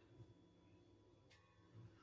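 Near silence: room tone, with a couple of faint, brief ticks.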